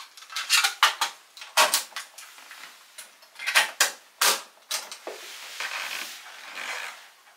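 Sharp, irregular plastic clicks and clatter from a portable cassette recorder and tape being handled: a cassette loaded and the recorder's keys pressed. Softer rustling follows for the last couple of seconds.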